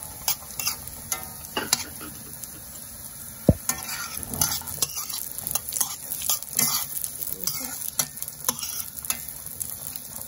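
Sultanas sizzling in hot oil in a pan while a metal spoon stirs and scrapes them, making frequent short clicks. There is one sharp knock about three and a half seconds in.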